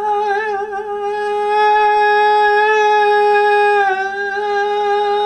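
A man's voice holding one long high note in a low-volume falsetto, wavering at the start and end, with a small drop in pitch about four seconds in. It is sung without any warm-up, and it comes out pretty weak and shaky.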